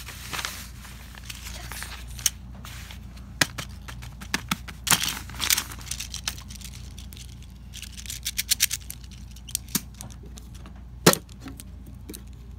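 Paper sheets rustling and crinkling under sliding hands, with scattered sharp clicks and taps, including a quick run of clicks about two-thirds of the way in.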